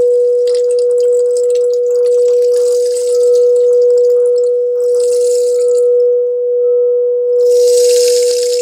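Frosted crystal singing bowl sung by rubbing a mallet around its rim, holding one steady, unbroken tone. Over it a rain stick hisses and patters in waves as its fill runs down, the loudest wave coming near the end after the stick is turned over.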